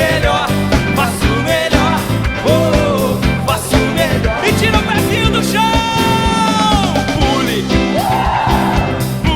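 Live gospel band playing: a male voice singing over drums, electric guitar, bass and keyboard, holding one long note around the middle.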